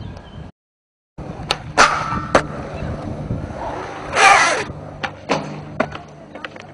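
Skateboard wheels rolling on smooth concrete, with several sharp clacks of the board being popped and landing, and a short loud scrape about four seconds in. The sound cuts out completely for about half a second just after the start.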